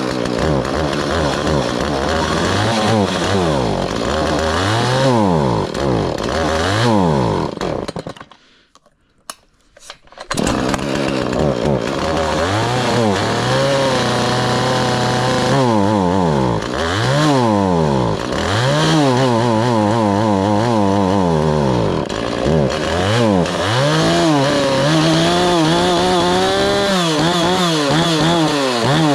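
Husqvarna 450 two-stroke chainsaw engine running after a cold start, revved up and down over and over. It cuts out about eight seconds in and is running again about two seconds later. The owner finds it a little boggy.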